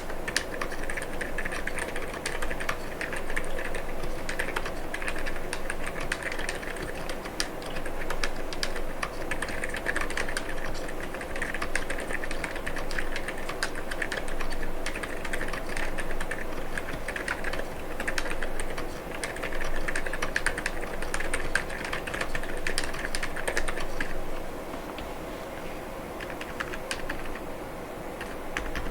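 Fast, continuous typing on an Akko MU01 mechanical keyboard with Gazzew Boba U4 silent tactile switches and PBT keycaps: a dense stream of muted keystrokes. The typing thins out to fewer, quieter strokes near the end.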